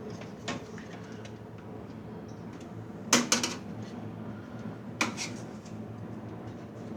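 Metal parts of a server chassis clanking as it is being dismantled: a quick pair of sharp metallic knocks about three seconds in and another about five seconds in, over a low steady hum.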